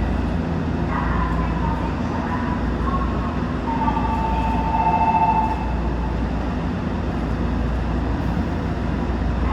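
Toyo Rapid Railway 2000 series train standing at a station platform: a steady low hum from the train's equipment. Faint ringing tones come and go, the clearest from about four to five and a half seconds in.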